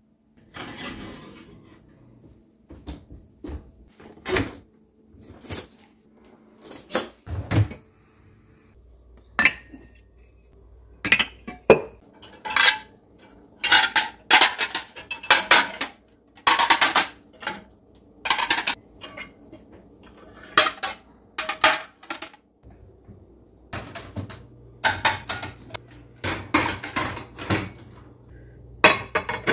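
White ceramic plates clinking and knocking together as they are lifted out of a dishwasher rack and stacked on a cupboard shelf: a long run of sharp clinks, many coming in quick clusters.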